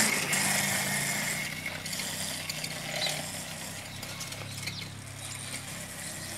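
Small engine of a children's mini quad bike running steadily as it drives off across grass, growing fainter over the first five seconds.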